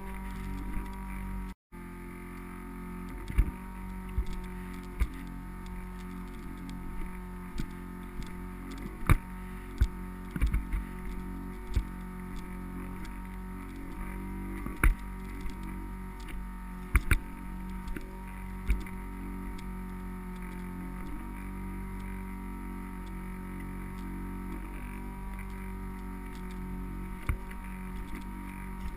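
Steady whirring hum of an anti-fog goggle fan running right beside a GoPro in a waterproof case, heard muffled through the case. Scattered sharp clicks and knocks sound over it, and the sound drops out for a moment early on.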